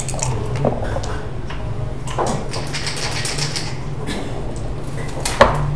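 Backgammon play: dice rolled out onto the board among light clicks of checkers and pieces being handled, with one sharp click near the end, over a steady low hum.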